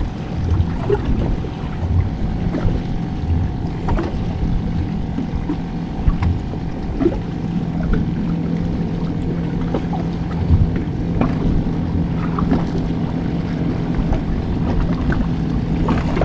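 Wind on the microphone and water moving around a small fishing boat, with a faint steady hum underneath and a few light ticks scattered through.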